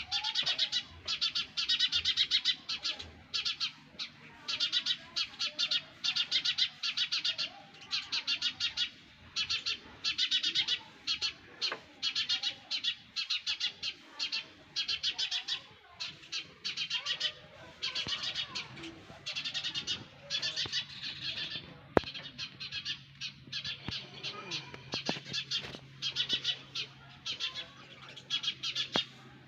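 Sparrow nestlings chirping in the nest: rapid high chirps in short bursts, one after another, with brief gaps between. A single sharp click about three-quarters of the way through.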